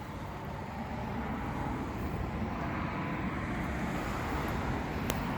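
Steady low rumble of outdoor background noise, with a single faint click about five seconds in.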